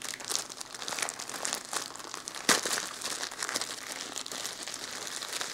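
Clear plastic packaging bag crinkling and rustling as hands work a garment out of it: a run of quick crackles, with one sharper, louder crackle about two and a half seconds in.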